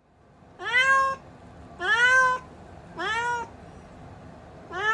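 Kitten meowing repeatedly: four high calls about a second apart, each rising in pitch and then levelling off, the last one starting near the end.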